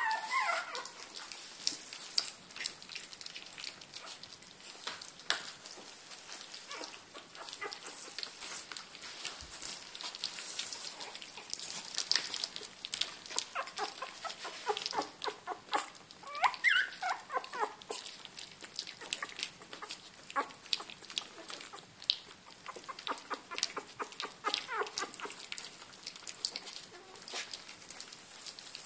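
Three-week-old puppies lapping and smacking at soft mushy food from plastic dishes at their first solid feed: a steady stream of quick wet clicks. A few short high whines cut through, the clearest about two-thirds of the way in.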